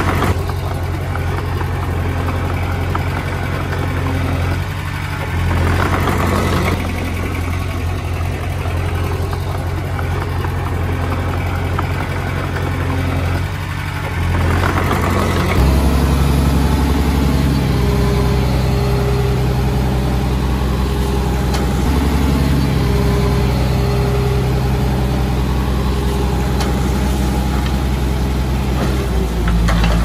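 Komatsu D20P small bulldozer's diesel engine running steadily under work, its note rising in level and changing pitch about halfway through as engine speed or load shifts.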